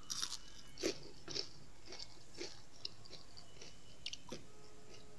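Breaded, deep-fried onion rings being bitten and chewed with a crisp crunch: a string of sharp crackles, the loudest about a second in, dying away near the end.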